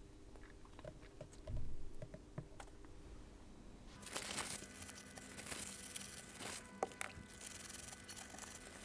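Kapton tape being peeled and handled, a faint crinkly tearing rustle that starts about four seconds in, with a few light clicks before it.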